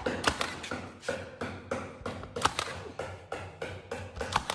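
Irregular sharp taps and knocks, about two or three a second and of uneven strength, from hand work on wood trim boards.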